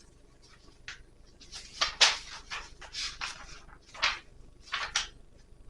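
Paper pages of an instruction manual being handled and turned: a run of short, irregular rustles, the loudest about two seconds in.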